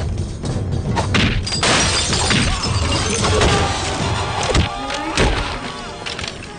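Film soundtrack: background music under a run of heavy thuds, with a crash of something smashing about a second and a half in.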